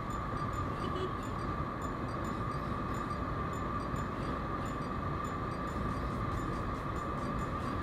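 Motorcycle riding at a steady speed: engine and wind noise run on evenly, with a constant high whine over them.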